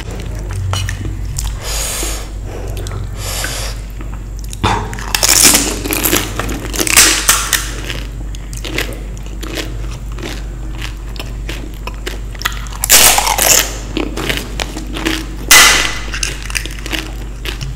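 Close-miked eating of crisp Indian street snacks: several loud crunching bites a few seconds apart, with chewing in between, over a low steady hum.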